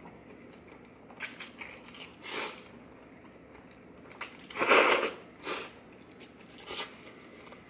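Slurping spaghetti noodles and chewing a mouthful of pasta topped with toasted breadcrumbs, in a few short bursts; the loudest slurp comes a little under five seconds in.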